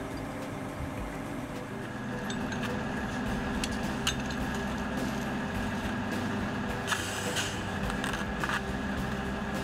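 A steady machine hum from heavy equipment running, with scattered metallic clinks and taps as hydraulic hose fittings and tools are handled. There is a brief rattle about seven seconds in.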